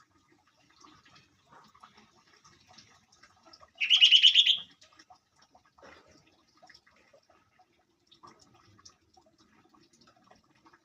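Sooty-headed bulbul (kutilang) giving one loud burst of quick notes lasting under a second, about four seconds in, with faint scattered ticks and chirps around it.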